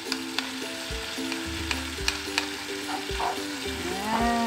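Carrots and seasonings sizzling in a frying pan as they are stirred, with sharp clicks of the spatula against the pan. Soft background music plays under it.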